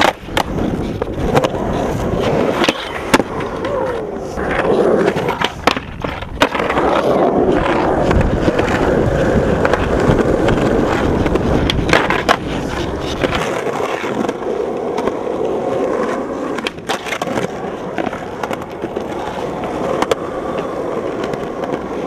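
Skateboard wheels rolling on concrete, broken by sharp clacks of the board popping and landing every few seconds, and the board scraping along a concrete ledge.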